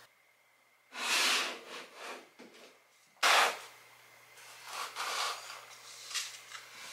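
Hands handling potted plants: irregular rustling and scraping, with a sharp, louder scrape or knock just after three seconds.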